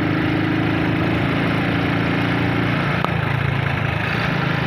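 Motorcycle engine running steadily while riding along; about two-thirds of the way through its note drops a little as the throttle eases.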